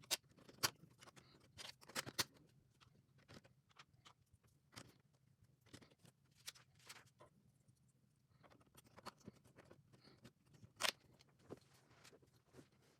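Plastic LEGO bricks and parts being handled and pressed together: irregular sharp clicks and taps, the loudest a single click about eleven seconds in, over a faint low hum.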